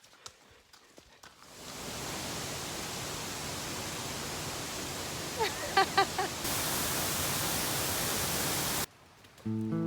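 Steady rushing roar of a waterfall. It fades in after a second or so, steps up a little louder partway through, and cuts off abruptly near the end. A few brief high sounds rise over it around the middle.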